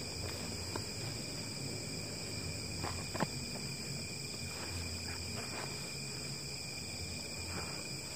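Steady chorus of night insects, several high shrill tones held at once without a break. A few soft rustles and light knocks come from a backpack and clothing being handled, the clearest about three seconds in.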